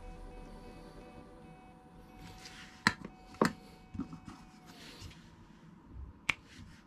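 Soft handling of fishing line and small tools, with a few sharp clicks and taps. The last one, a little over six seconds in, is scissors snipping the tag end of the knotted line. The tail of background music fades out during the first few seconds.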